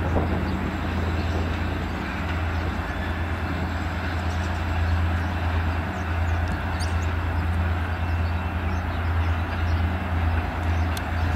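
Diesel locomotive engine running with a steady low drone while a locomotive-hauled passenger train shunts slowly through the yard.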